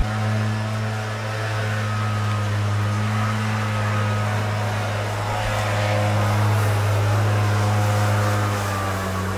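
Gas-powered leaf blower's small engine running at a steady high speed: a loud, even engine hum.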